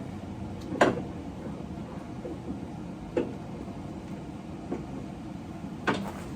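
A few sharp clicks and knocks from handling the removed door mirror and its stripped mounting post: one loud click about a second in, a smaller one about three seconds in and another near the end, over a low steady hum.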